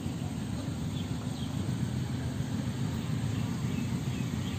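Wind buffeting an outdoor microphone: a steady low, irregular rumble, with a few faint high chirps from small birds.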